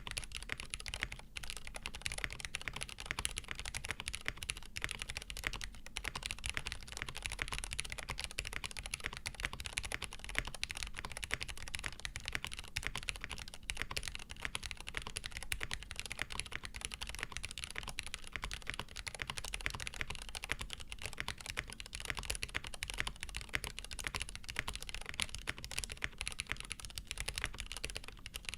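Fast, continuous typing on a Frog TKL custom mechanical keyboard: lubed Cherry New Nixie switches on a POM plate with GMK keycaps and a tape mod, giving a rapid, unbroken stream of keystroke clacks.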